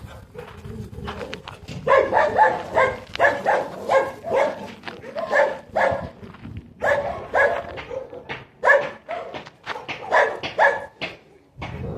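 Dog barking repeatedly in quick runs, starting about two seconds in.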